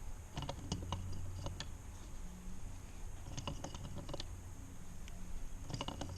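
Scattered light clicks and taps of plastic pool-return fittings being handled and threaded together by hand, irregular rather than rhythmic, over a steady low hum.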